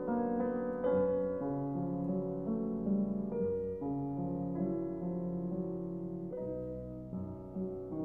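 Background piano music, with held notes and chords changing about once a second.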